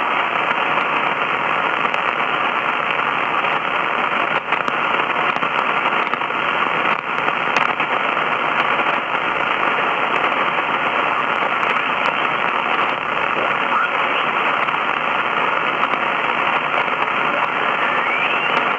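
Static hiss from a Grundig Satellit 800 Millennium shortwave receiver's speaker as it is tuned up through the 75-metre ham band in sideband mode, between stations. A faint rising whistle sweeps past near the end.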